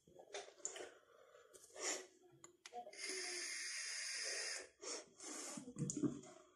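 A person vaping: a long steady hiss of air drawn through the vape for about a second and a half in the middle, with short breathy puffs of exhaled vapor before and after.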